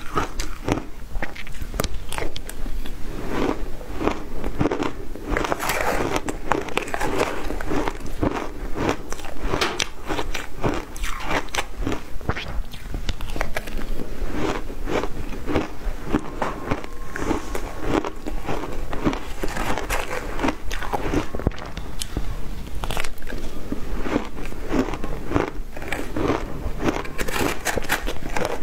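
Shaved ice being bitten and chewed close to the microphone: dense, continuous crunching and crackling, bite after bite.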